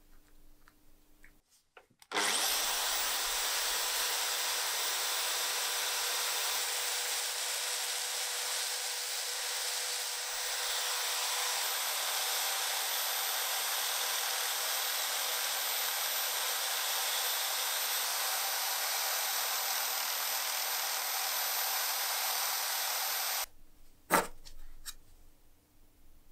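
Drill press spinning an abrasive sanding drum, with a small metal part held against it: a steady hiss of grinding with a motor whine underneath. It starts suddenly about 2 seconds in and cuts off near the end, followed by a single sharp knock.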